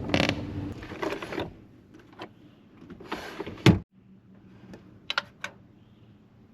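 A few clicks and short rustling bursts, then a sharp thump about three and a half seconds in, followed by a faint steady low hum with a few more light clicks.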